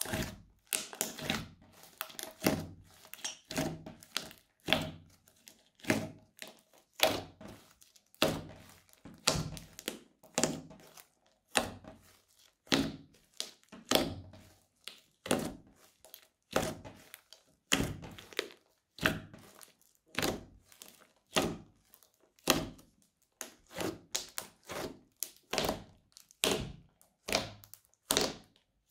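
Thick glittery slime squeezed and poked by fingers, with trapped air popping and crackling out in sharp clicks, roughly one or two a second.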